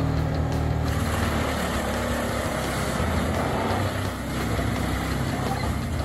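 Large tracked drum wood chipper running steadily under load as a crane feeds it logs, wood being chipped and blown out the discharge chute. The engine hum is joined by a rougher chipping noise from about a second in, with a brief dip in level near the end.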